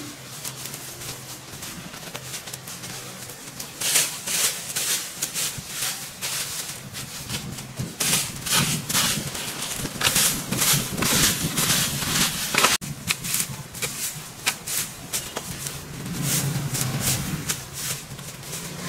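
Irregular rustling and scraping strokes, as of brush and dry leaves being worked, in bursts through most of the stretch, over a low steady hum.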